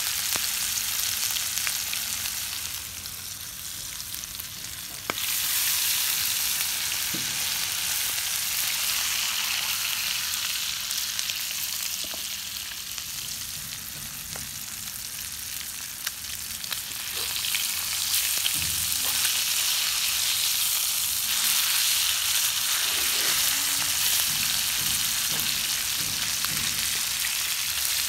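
Trigger fish fillets frying in hot oil in a pan, a steady crackling sizzle. It dips quieter twice and jumps back up suddenly about five seconds in.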